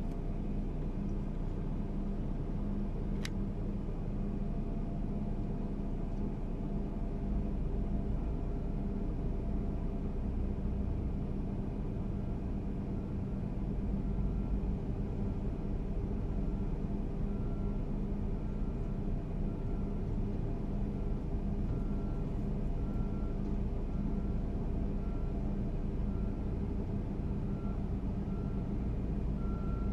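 Diesel engines of earthmoving machines running steadily with a low rumble. From about eight seconds in, a reversing alarm beeps at a steady pace.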